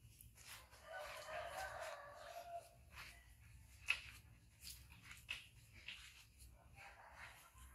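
A rooster crowing once, starting about a second in. Scattered light scuffs and clicks follow, with one sharp click about four seconds in.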